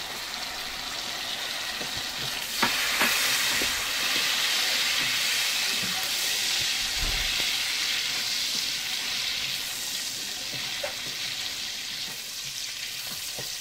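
Butter and oil sizzling in an aluminium pot as sultanas, almonds and cardamom fry in it, stirred with a wooden spatula. The sizzle grows louder a few seconds in, with a few short knocks, then eases off a little.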